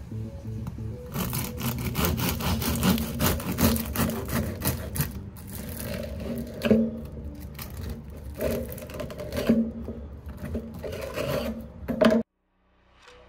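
Long bread knife sawing through the hard crust of a sourdough loaf on a wooden cutting board, a dense run of crackling, rasping strokes. It starts about a second in and cuts off suddenly near the end.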